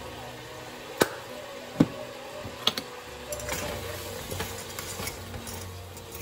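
Kitchen handling noises: two sharp knocks a little under a second apart, then a couple of lighter clicks and a run of soft irregular clatter, over a steady low hum.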